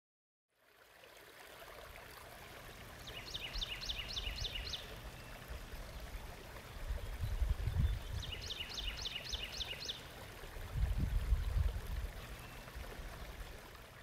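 A flowing stream fades in, with low rumbles swelling twice. Over it a bird sings twice, each time a quick run of about seven falling notes.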